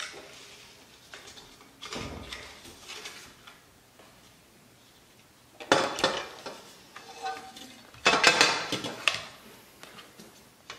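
Aluminium extrusions and a plastic jig being handled and pushed together on a stone countertop: scattered knocks and metallic clatter, loudest in two bursts about six seconds in and around eight to nine seconds in.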